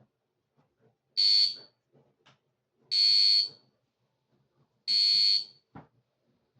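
Fire alarm sounder giving three high-pitched electronic beeps, each about half a second long and about two seconds apart.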